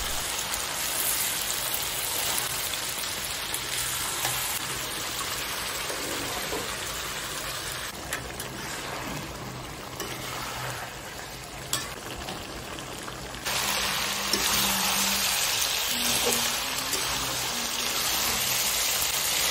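Chicken pieces in masala sizzling in oil in a karahi, stirred with a metal spatula, as the chicken is fried down in its spices with small splashes of water. The sizzle steps up suddenly and grows louder about two-thirds of the way through.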